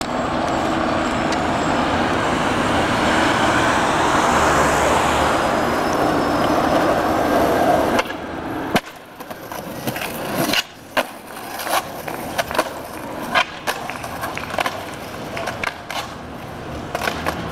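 Skateboard wheels rolling over rough pavement, a loud steady roar for about eight seconds. It then cuts to quieter rolling broken by a string of sharp clacks and knocks of skateboards hitting the ground.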